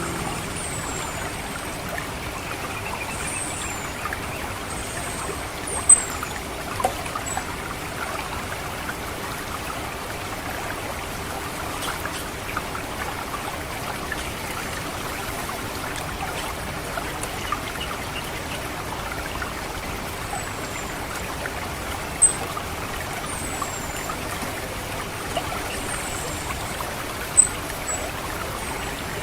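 Water trickling and gurgling steadily through a rice paddy, with an orange-headed thrush giving thin, very high, short falling 'ngecit' calls in scattered bunches, the loudest about six seconds in and again twice near the end.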